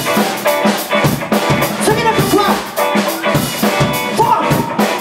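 A live rock band playing, with drum kit, electric bass and electric guitar, and a male lead vocalist singing over it.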